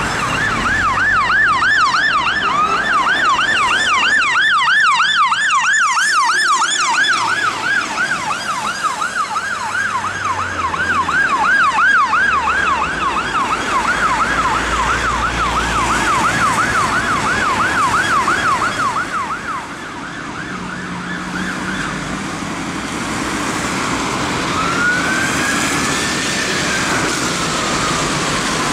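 Fire engine siren on a fast yelp, rising and falling about three times a second, over passing traffic. Near the end a slower wailing siren rises and falls once.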